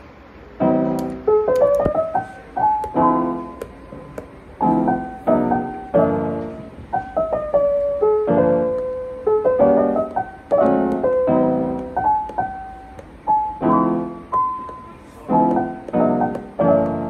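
Background piano music: chords struck about once a second with a simple melody above them.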